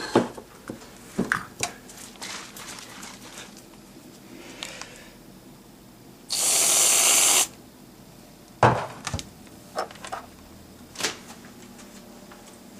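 Aerosol whipped-cream can spraying in one hiss of just over a second near the middle, between scattered kitchen knocks and clatters of the can being handled.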